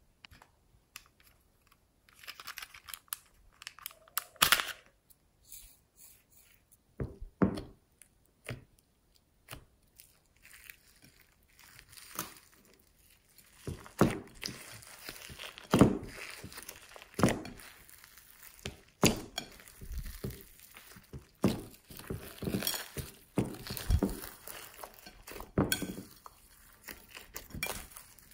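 Hands squeezing and folding glossy slime loaded with glitter, sequins and other add-ins: wet clicks, squelches and crinkly crunches. Only a few sounds in the first ten seconds, then steady, irregular squishing from about twelve seconds in.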